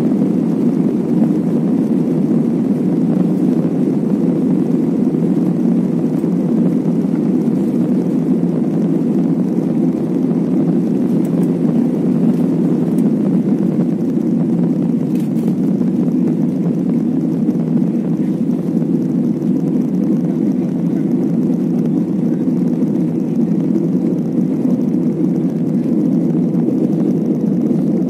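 Airbus A320-family jet at take-off thrust, heard from inside the passenger cabin: a steady, loud low noise of engines and airflow through the take-off roll and lift-off.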